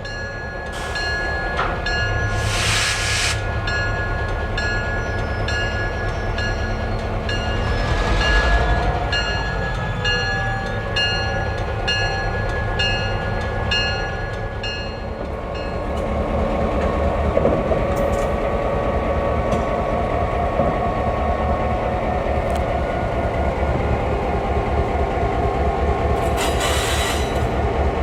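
Diesel-hauled heritage train running, with a steady engine throb throughout. Steady ringing tones and a regular pulsing chime sound over roughly the first half, and there are short rushes of noise near the start, in the middle and near the end.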